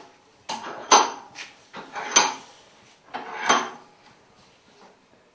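Metal engine parts clinking and clattering as they are handled and set down, in three short bouts, each with one sharp clink.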